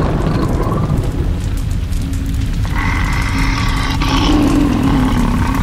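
Soundtrack fire effect: a loud, steady deep rumble of roaring flames around the dragon. About three seconds in, a sustained pitched tone joins on top and holds to the end.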